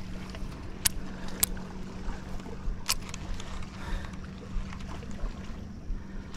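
A bass boat's electric trolling motor humming steadily over a low rumble, with three sharp clicks in the first three seconds.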